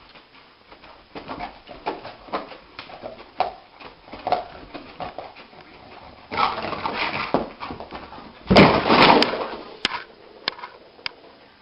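An animal, likely a pet, making a run of short cries, followed by two louder noisy bursts, the louder one about eight and a half seconds in, and a few sharp clicks near the end.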